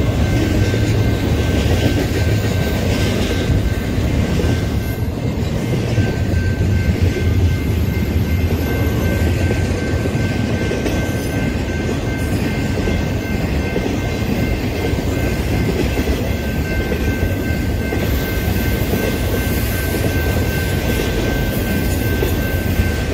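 Intermodal freight train's cars rolling past on the rails: a loud, steady rumble of wheels on track, with a thin, steady high-pitched ring over it.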